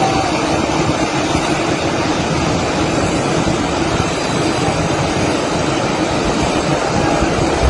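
A muddy flash flood rushing down a channel: a loud, steady noise without breaks.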